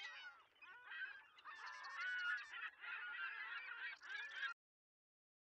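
Many bird calls overlapping, like a flock calling together; the sound cuts off abruptly about four and a half seconds in.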